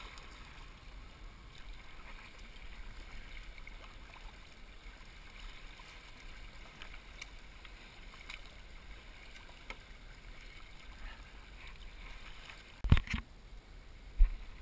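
Sea kayak being paddled: faint water lapping and small splashes and drips from the paddle blades. A brief loud knock comes near the end.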